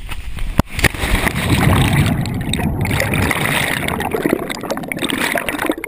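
Jump into a freshwater waterfall pool, heard from the submerged action camera. A sharp splash hits about half a second in, then a loud, churning rush of water and bubbles runs around the camera. The rush cuts off suddenly near the end as the camera surfaces.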